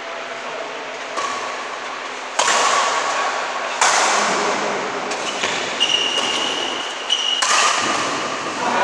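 Badminton rally: a string of sharp racket strikes on the shuttlecock, irregularly spaced about a second apart, each ringing out in the echo of a large hall, with a few short high squeaks in between.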